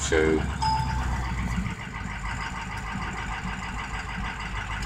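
6.0L Power Stroke V8 diesel idling steadily at about 1,000 rpm, with a short beep about half a second in. The engine has injector trouble: several cylinders are dropping out.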